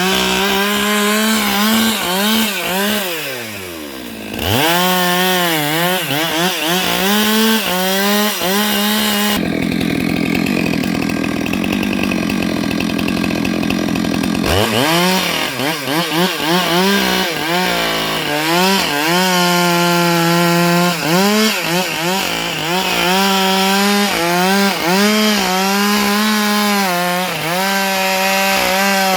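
Stihl MS 462 two-stroke chainsaw running at high revs while cutting wood, its engine pitch dipping and recovering again and again as the chain loads up in the cut. About three seconds in, the revs fall almost to idle and then climb back, and for about five seconds in the middle the engine note gives way to an even rasping noise.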